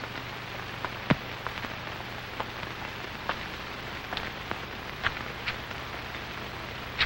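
Steady hiss over a low hum, with scattered, irregular clicks and pops, the loudest about a second in: the surface noise of a worn old film soundtrack.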